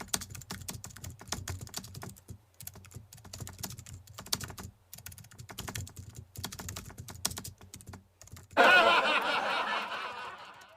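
Computer keyboard typing: rapid, irregular key clicks. About eight and a half seconds in, a louder sustained sound with a wavering pitch takes over and fades away.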